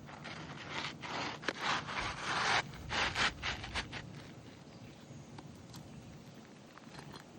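Scraping and rubbing on asphalt roof shingles in a run of short strokes over the first four seconds or so, then only a few faint ticks.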